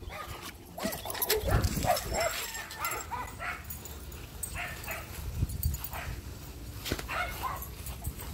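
A husky-type dog vocalizing in short calls that bend up and down in pitch: a run of them in the first three seconds and a few more near the end.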